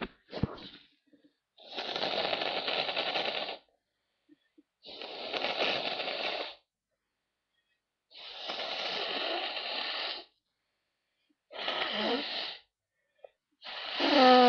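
A person blowing their nose three times, each blow a steady hiss of about two seconds. A shorter snuffle follows, then a voiced 'ah' rising into a loud sneeze right at the end.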